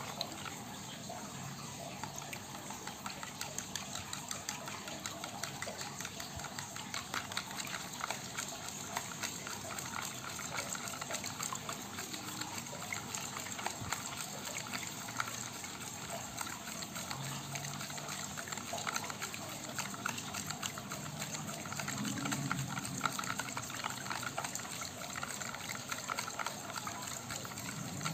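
Metal spoon stirring a milky liquid mixture in a plastic bowl: steady sloshing and swishing of the liquid, with many small clicks and scrapes of the spoon.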